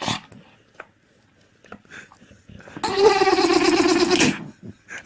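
An animal's single drawn-out, wavering call lasting about a second and a half, preceded by a short breathy burst at the start.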